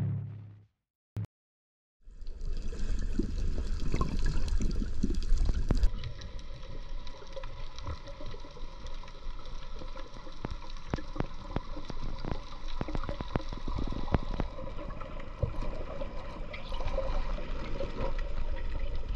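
Underwater sound picked up through a camera's waterproof housing: a steady rush of water with a dense crackle of sharp clicks and a low rumble. It begins about two seconds in, after background music fades out and a moment of silence.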